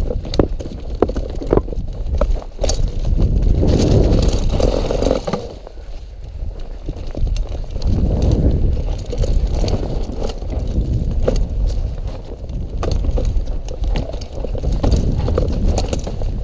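Mountain bike riding fast down a dirt trail. Heavy wind buffeting on the camera microphone rumbles under tyre noise, and the chain and frame rattle with many sharp clicks over bumps. The rumble eases briefly twice, about a third of the way in and again about three quarters of the way in.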